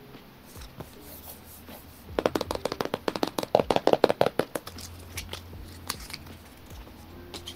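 Fingers tapping and handling a paperboard Apple Watch box: a fast run of taps, about ten a second, starting about two seconds in and lasting a couple of seconds, then lighter scattered clicks of the box being handled.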